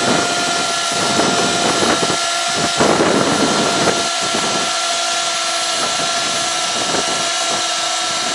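Cordless drill running steadily with a constant whine, turning a boat lift's drive pulley through a 5/8-inch socket to raise the boat in place of the lift's own motor.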